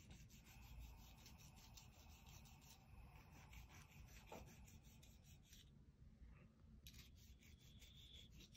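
Faint rasping of a hand nail file on a bulldog's claws, in many short, soft strokes.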